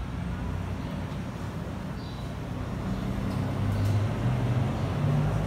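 A vehicle engine running: a low rumble that grows louder and shifts in pitch about halfway through.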